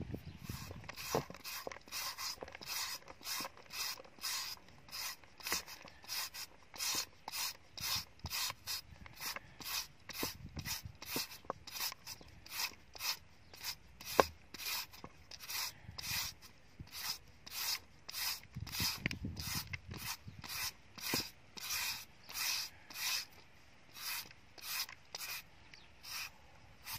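Plastic julienne shredder rasping along a peeled green papaya, cutting the flesh into long strands. The strokes come evenly, a little under two a second, with an occasional sharper click.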